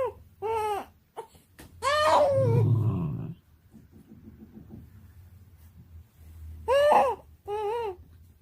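An animal vocalising: two short wavering calls, a longer call that slides down in pitch, then two more short calls near the end.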